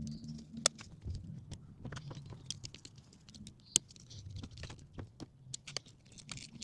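Scattered light clicks and taps of hand work on a motorcycle while its battery is fitted in, with a sharper knock about four seconds in.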